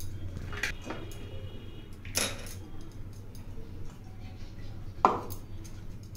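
A few separate knocks and clinks of plates and kitchen utensils being handled, the loudest about five seconds in, over a low steady hum.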